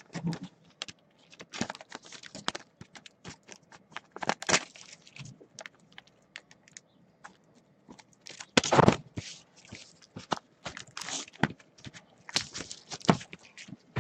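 Trading cards and plastic card sleeves being handled and sorted: irregular rustling, crinkling and small clicks, with a louder scrape about nine seconds in.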